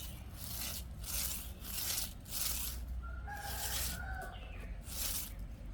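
Scattered rustling and scratching noises over a low hum, with one drawn-out animal call lasting about a second, about three seconds in.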